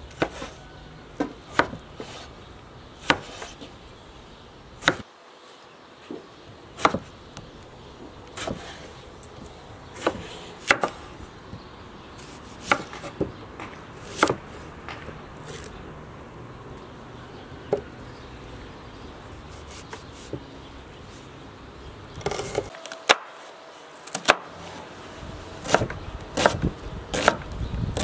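Chef's knife chopping vegetables on a wooden cutting board: sharp knocks of the blade striking the board, spaced irregularly and coming quicker near the end.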